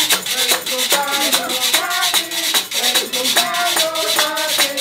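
A group of voices singing a song together, with a metal shaker rattled on a quick, steady beat and hands clapping along.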